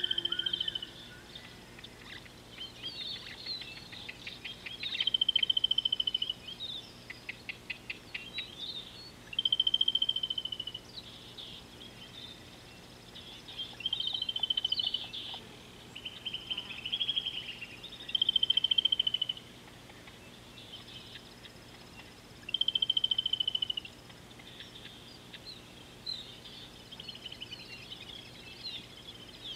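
Wild birds calling: a trilled, wavering note about a second long repeats every few seconds among scattered chirps. A quick run of clicking notes comes about seven seconds in.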